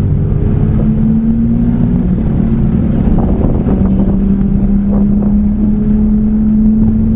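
Small engine of a Japanese kei mini truck, heard from inside the cab while driving, with road and wind noise. Its hum drops in pitch about two seconds in, then slowly climbs as the truck picks up speed.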